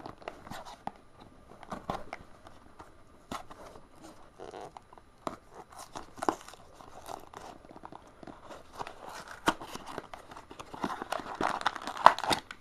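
Cardboard and paper handling: scattered light clicks and rustles that turn into denser crinkling near the end, as a cardboard blind box is picked up from the case.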